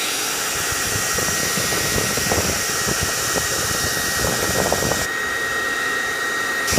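Hair dryer blowing steadily, a rushing hiss with a thin, high motor whine. About five seconds in, the highest part of the hiss drops away for a moment.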